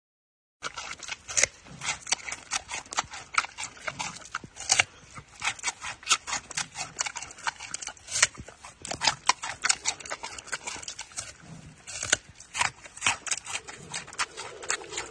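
Giant panda chewing raw carrot and pumpkin: dense, irregular crisp crunches, several a second, starting about half a second in.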